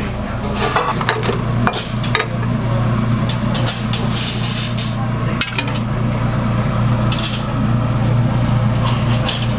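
Metal cooking utensils clinking and scraping against pans and dishes, with short hissing stretches over a steady low hum.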